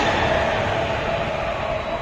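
1280 kW Baudouin natural-gas generator set running: a loud, steady mechanical noise with a steady whine over it, growing gradually quieter.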